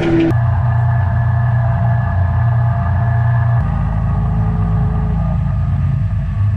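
Combine harvester engine running steadily, a continuous low drone. The sound changes abruptly just after the start and again about halfway through.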